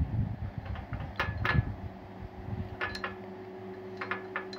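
Silicone spatula pressing and leveling shredded kunafa pastry in a glass dessert bowl: soft pressing and scraping, with several light clicks of the spatula against the glass, a few of them ringing briefly.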